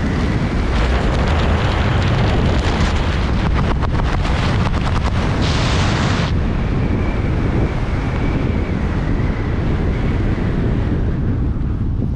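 Loud wind rushing and buffeting over a skydiver's camera microphone, a steady roar with crackling gusts and a brief sharper hiss about halfway through.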